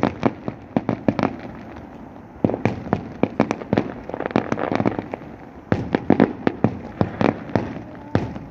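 Fireworks going off in quick strings of sharp bangs and cracks, in volleys with short lulls between them.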